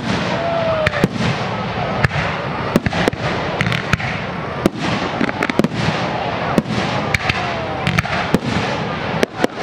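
Aerial fireworks display: a rapid, irregular series of sharp bangs from shells bursting, two or three a second, over a continuous noise of the show.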